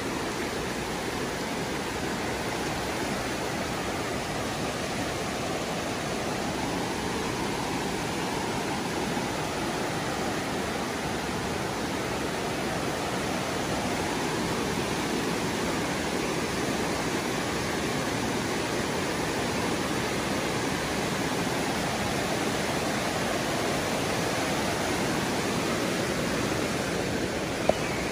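Flood-swollen creek rushing past in full spate, a steady, dense noise of fast muddy water. A single brief knock comes near the end.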